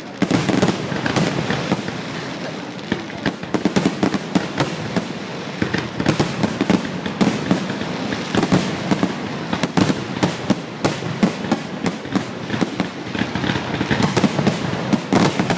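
Fireworks grand finale: a dense, rapid barrage of shell bursts and crackling bangs, many reports a second overlapping one another.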